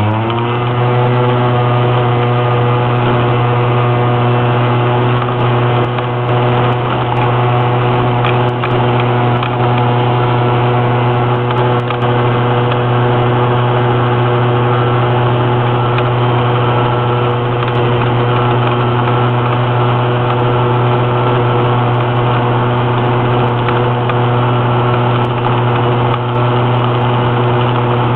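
Small engine of a Honda Gyro Canopy three-wheeled scooter pulling uphill at steady high revs, heard from onboard. Its pitch rises and settles right at the start, then holds even.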